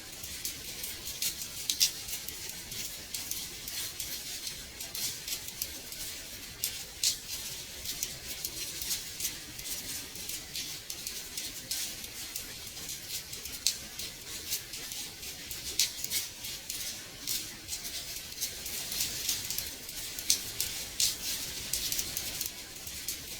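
Rain on a window pane: a steady hiss of rainfall with many irregular light taps of drops on the glass.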